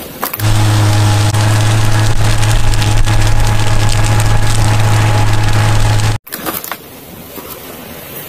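Fire tanker truck running with a steady low drone under a loud hiss, starting just after the opening and cutting off suddenly about six seconds in.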